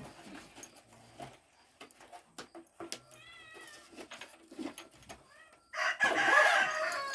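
A pet animal calls several times in short wavering cries, breaking into a loud run of calls about six seconds in, over scattered clicks and rustles of the pet carrier being handled.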